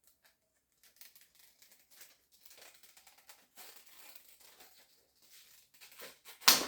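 Broadhead packaging being handled and opened: soft crinkling and rustling with small clicks, then one sharp, loud snap at the very end.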